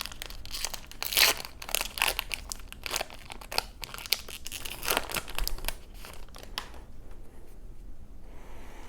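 Trading-card booster pack's foil wrapper crinkling as it is torn open, a run of sharp crackles that dies down about seven seconds in.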